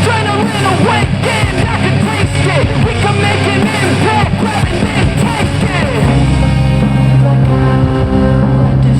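Rock music played through a Tronsmart Mirtune S100 portable Bluetooth speaker at half volume. The first part is busy with sliding pitches; about six seconds in it changes to steady held bass notes and sustained chords.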